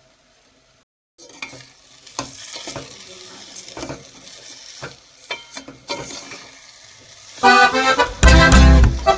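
Food frying and sizzling in a pan while a metal spatula stirs and scrapes it, with frequent clicks. About seven and a half seconds in, loud music with a beat comes in and drowns it out.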